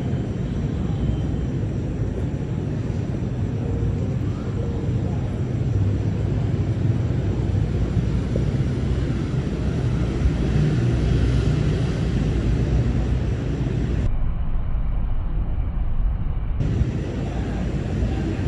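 Low, steady rumble of a thunderstorm, with no sharp thunderclap.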